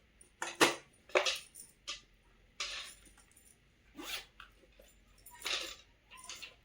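Toy packaging being handled during unboxing: several short crinkles, rustles and clicks, roughly one a second, with quiet between them.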